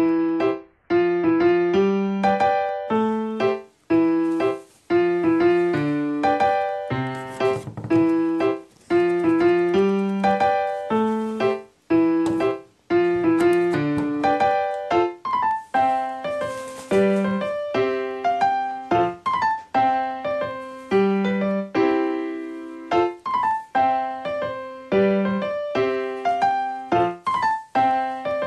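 Background piano music: a light tune of struck notes in a steady rhythm.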